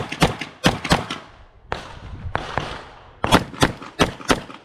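Glock 34 9mm pistol fired in quick double-taps: two pairs in the first second, a pause of about two seconds, then two more pairs.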